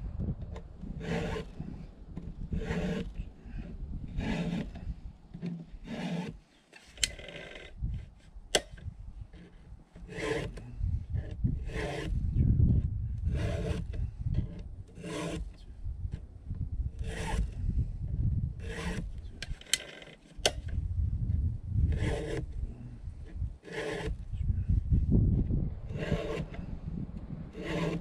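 Chainsaw chain being hand-sharpened with a file on a STIHL MS261 C-M: short rasping file strokes across the cutters, roughly one every one and a half seconds, under a low rumble of wind on the microphone.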